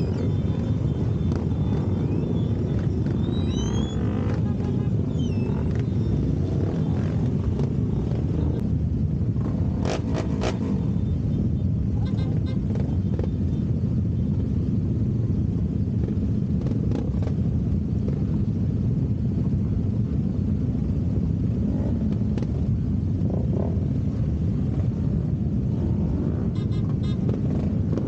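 Steady low rumble of a large crowd of motorcycles idling together, with a few short sharp clicks about ten seconds in.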